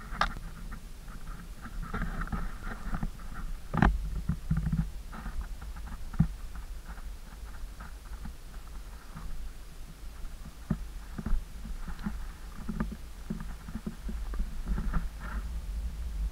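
Wind buffeting the camera microphone: a steady low rumble with irregular crackles and gusts, the sharpest about four seconds in.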